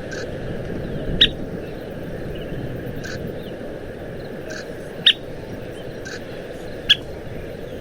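Scissor-tailed flycatcher giving short, sharp call notes, several in a row, the loudest about a second in, at five seconds and near seven seconds, over a steady low background noise.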